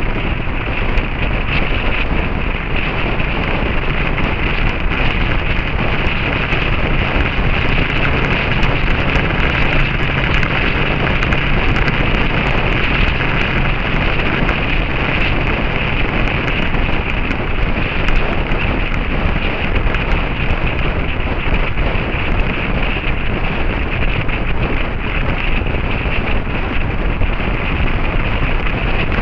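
Steady wind rush over the microphone of a camera on a moving motorcycle, with the bike's engine and road noise running faintly underneath.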